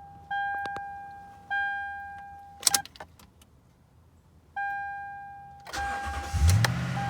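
A 2010 Toyota Tundra's cabin warning chime dings three times in the first couple of seconds, with a couple of sharp clicks near three seconds in and another ding after a pause. About six seconds in, the truck's 4.6-litre V8 cranks and catches, rising in revs and settling to a fast idle, on its first start after the secondary air pump and check valve were replaced.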